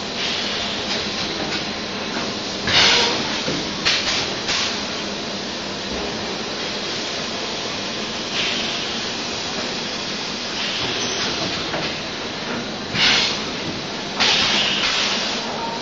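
DKW12T six-head extrusion blow molding machine running in production, with a steady mechanical hum. Several loud, short hisses of compressed air come at irregular intervals as the pneumatics blow and exhaust.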